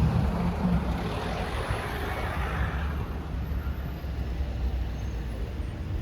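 Steady road-vehicle noise with a low rumble; a hiss swells and fades in the first three seconds.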